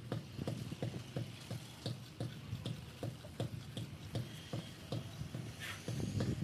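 Steady rhythmic clacking, about three sharp knocks a second, over a low background rumble.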